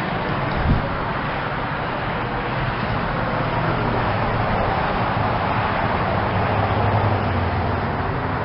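Steady whooshing noise with a low hum, the sound of running outdoor air-conditioning condensing units, with a single short thump about a second in.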